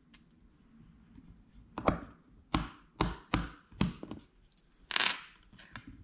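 Master Lock Model 90 trigger lock being snapped back together: a series of about six sharp clicks as the ridged ratchet post is pushed down through the locking pawl, with a short scrape of handling near the end.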